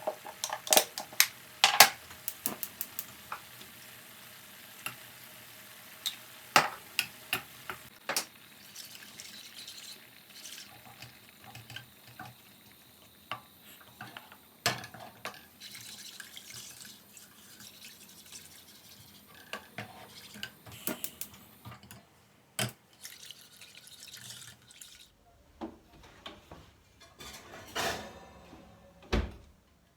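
Kitchen cooking sounds: sharp clinks and knocks of utensils and dishes over a steady hiss that stops about two thirds of the way through, followed by a few scattered knocks.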